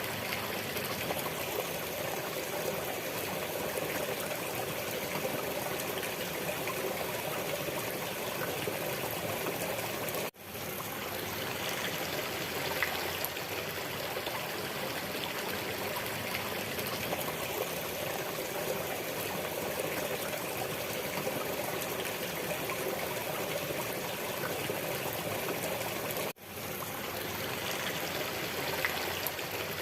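Steady sound of running water, like a flowing stream, broken twice by a brief dropout after which it fades quickly back in.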